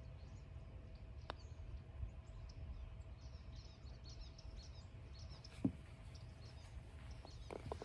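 Birds chirping over a low outdoor background. About a second in comes the light click of a putter striking a golf ball, and about five and a half seconds in a louder single knock. A few soft clicks follow near the end.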